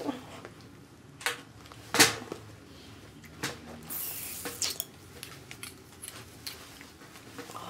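Makeup tools being handled and used on a face with an oversized sponge and a brush: scattered sharp taps and clicks, the loudest about two seconds in, with a short hiss around the middle.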